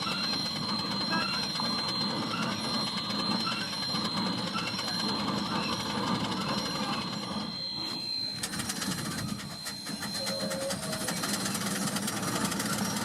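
Steam-driven railroad work equipment running, the engine fed with locomotive steam: a steady hiss with a thin high steady tone, and a fast rattling clatter that starts about eight and a half seconds in.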